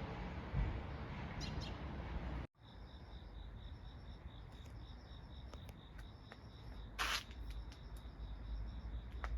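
Insects trilling in a steady, rapidly pulsing high chirr over a low outdoor rumble. The sound drops out abruptly about two and a half seconds in, and a short sharp sound stands out about seven seconds in.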